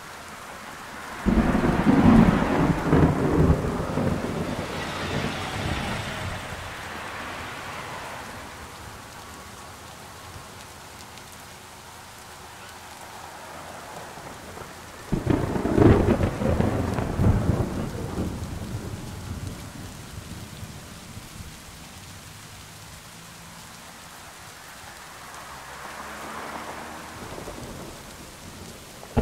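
Steady rain with two thunderclaps, one about a second in and one about halfway through. Each breaks suddenly and rumbles away over several seconds.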